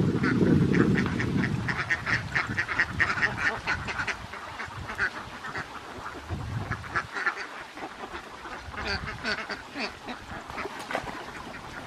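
A large flock of domestic ducks quacking: a steady chatter of many short, overlapping calls. A low rumble underneath is loudest in the first two seconds or so.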